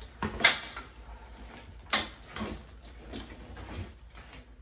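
Bassinet parts knocking and clicking as they are handled and fitted together: two sharper knocks about half a second and two seconds in, with lighter clatter in between.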